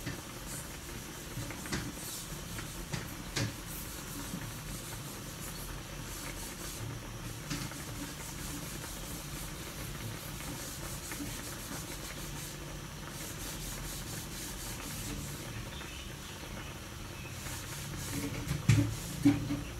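Tocino boiling in its liquid in an aluminium wok: a steady bubbling hiss with scattered small pops as the water cooks off. A few louder knocks near the end.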